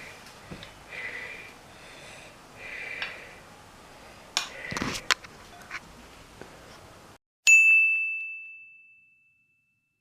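A single bright bell-like ding that comes out of dead silence and rings on one high pitch, fading away over about two seconds. Before it there are faint clinks and clatter in the kitchen.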